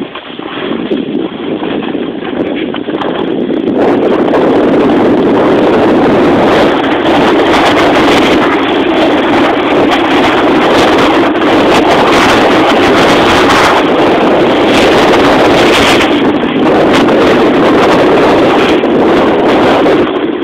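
Loud wind rushing over the camera microphone at snowboarding speed, building over the first four seconds and then staying steady.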